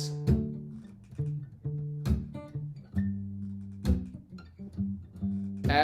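Martin GPCPA4 acoustic guitar strummed in rhythmic chord strokes, each chord ringing on between the strokes.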